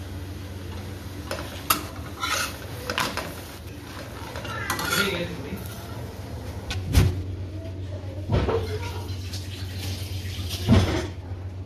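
Steel spatula and utensils clinking and knocking against metal cooking pans in a string of separate strikes, with two heavier knocks in the second half, over a steady low hum.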